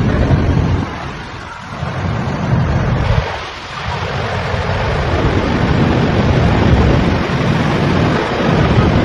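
Floodwater rushing loudly: a dense, steady noise of fast-moving water, with two brief dips in the first four seconds.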